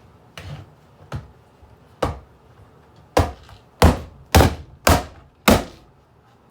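A series of sharp blows striking an alarm clock to break up its screen: a few lighter, spaced-out knocks, then from about three seconds in five hard strikes about every half second.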